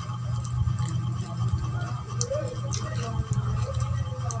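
Close-up chewing and wet mouth clicks of someone eating soft Filipino rice cake (kakanin), over a steady low hum.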